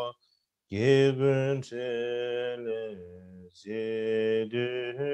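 A man chanting a Tibetan Buddhist prayer in a slow, melodic voice with long held notes. He breaks off for a breath just after the start and again about three and a half seconds in.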